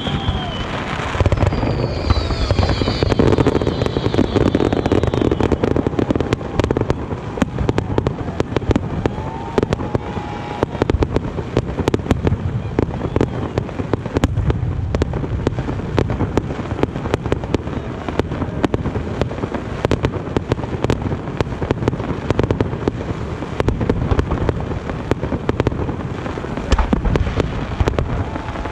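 Aerial fireworks going off in steady succession: deep booms from the shell bursts under dense, continuous crackling and sharp cracks, with a short falling whistle in the first few seconds.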